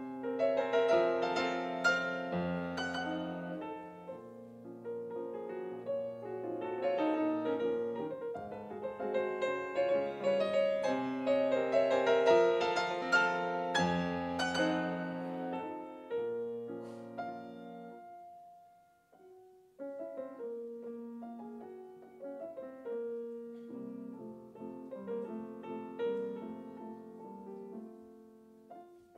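Solo classical piece on a concert grand piano. A full, dense passage dies away to a brief pause about two-thirds of the way through, and then a softer passage begins.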